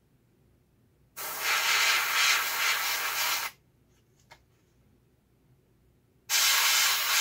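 Airbrush spraying paint in two bursts of hiss: the first runs about two seconds, starting about a second in; the second starts near the end.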